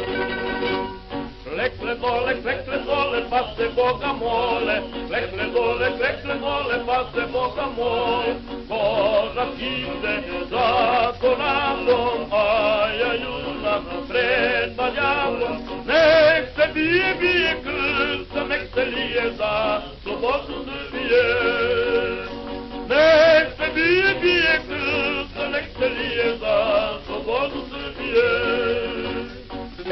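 Background music with a wavering melody line over an accompaniment, without words.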